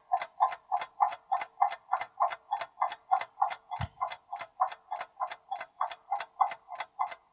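Clock-ticking sound effect of a quiz countdown timer, about four even ticks a second.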